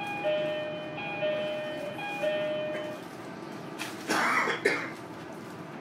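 An electronic two-tone chime inside the JR Kyushu 305 series carriage, a short high note then a longer lower one, sounding three times about a second apart over the steady running noise of the moving train. About four seconds in comes a short, loud, harsh burst.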